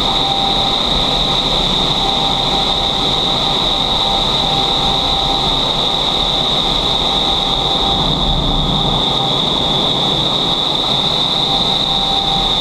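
Vertical wind tunnel running: a loud, steady rush of air inside the flight chamber, with a constant high-pitched whine over it.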